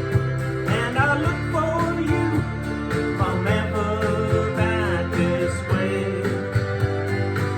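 Acoustic guitar strummed steadily in a country-folk song, with a wavering melody line carried over the chords.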